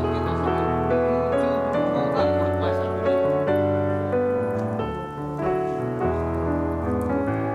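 Background music: a keyboard melody of held notes over low sustained bass notes.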